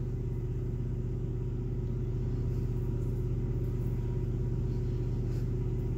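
Steady low mechanical hum, unchanging throughout, with several steady low tones and no other sound standing out.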